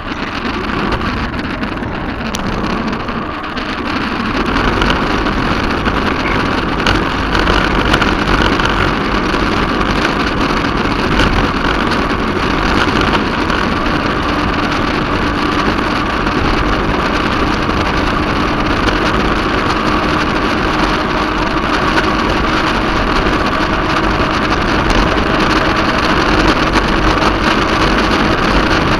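Steady wind rushing over the camera microphone on a moving bicycle, mixed with tyre and road rumble on asphalt. It grows louder about four seconds in.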